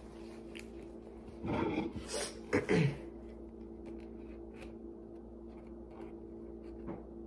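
A steady low hum, broken by two short noises about one and a half and two and a half seconds in; the second slides down in pitch.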